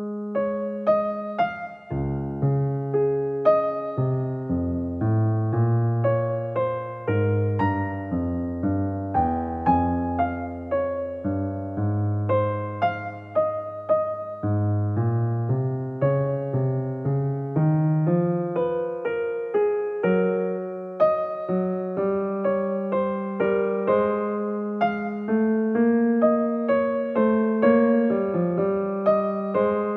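Background music: a gentle piano melody of notes struck one after another over a lower bass line.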